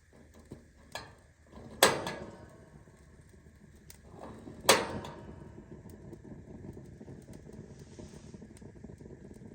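Freshly lit kerosene heater burning with a low steady rush as its wick is turned up, broken by two sharp knocks about three seconds apart and a few lighter clicks.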